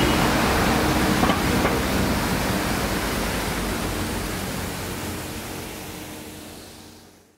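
Steady outdoor street noise, an even rush with a faint low hum under it, fading out gradually over the last few seconds to silence.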